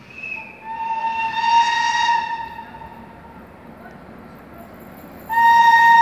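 Horn of an approaching electric locomotive pair, an E652 and an E655 running light. It gives two steady blasts of about two seconds each: the first near the start, just after a brief higher note, and the second near the end.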